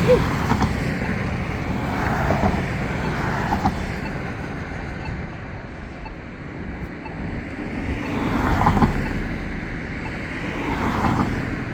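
Road traffic: cars passing one after another, each swelling and fading, with steady traffic noise in between.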